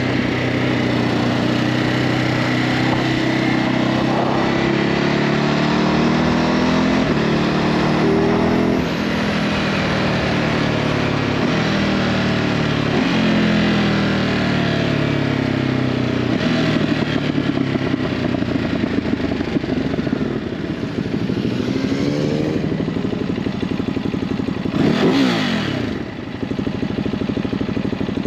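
Ducati Hypermotard 950's L-twin engine on its stock exhaust, ridden through the gears: the pitch climbs and drops back with each upshift several times. Near the end the engine note falls away as the bike slows.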